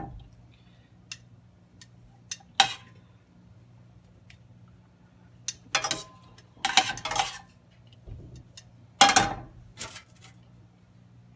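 A metal utensil clinking and scraping against a stainless steel sauté pan as beans and vegetables are scooped out, in scattered short bursts. A faint low hum runs underneath.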